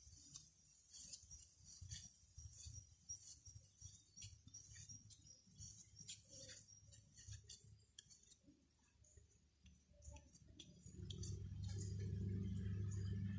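Light, irregular clicks and ticks of bamboo strips being cut and handled. About eleven seconds in, a low steady hum comes in and becomes the loudest sound.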